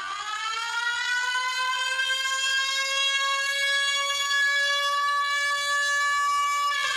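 A siren-like wail that winds up slowly in pitch over the first two seconds, holds a steady tone, and starts winding down near the end.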